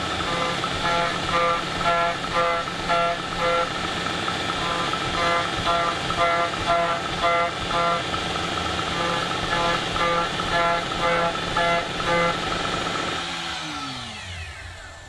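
DIY CNC milling machine cutting 21MnCr5 steel with an end mill: steady spindle and cutting noise with a ringing tone that pulses about twice a second as the cutter bites. Near the end the cutting stops and the spindle winds down with a falling whine.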